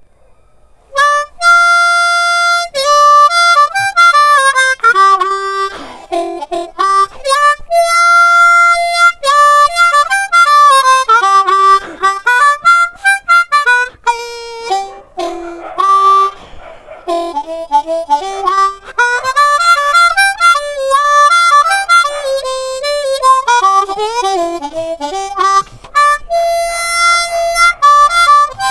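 An inexpensive harmonica playing a melody, starting about a second in, with a mix of short notes and held notes and brief pauses between phrases.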